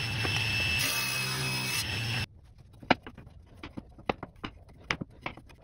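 Table saw running and cutting black walnut: a steady motor hum and high whine with the cutting noise swelling twice. About two seconds in it cuts off suddenly, followed by light, irregular knocks of walnut strips being set down and pushed together.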